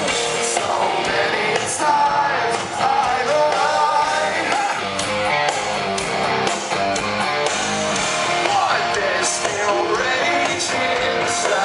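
Hard rock band playing live through a large PA, recorded from the crowd: distorted electric guitars, drums and the singer's vocals, loud and continuous.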